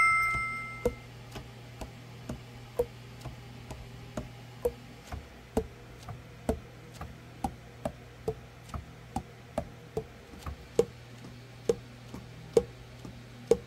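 Selmer Mark VI alto saxophone keys pressed and released over and over, the pads clicking shut on the tone holes about twice a second, during a leak test with a light inside the body. A steady low hum runs underneath.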